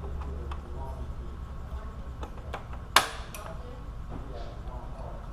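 Hand tools and parts clicking and knocking during work on a car's radiator fan assembly: a few light clicks and one sharp knock about three seconds in, over a steady low hum.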